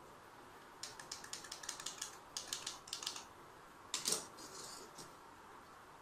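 Rapid light clicking and crackling, about eight small clicks a second for a couple of seconds, then a louder clatter about four seconds in: hands handling a garage-door remote's circuit board and its thin wires.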